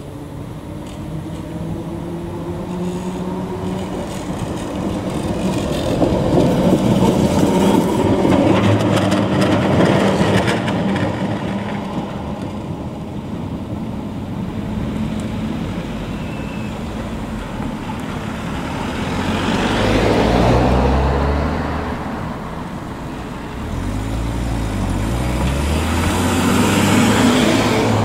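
Vintage tram running along a roadside track, with a motor whine rising in pitch at the start, mixed with road traffic passing close by. The sound swells loudest about a third of the way in and again in the last third.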